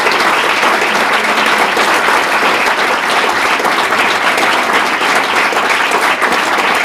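An audience applauding: a loud, steady round of many hands clapping.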